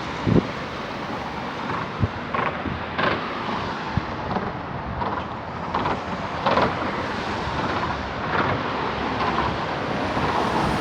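Wind buffeting the microphone outdoors, a steady rumbling hiss with short irregular gusts.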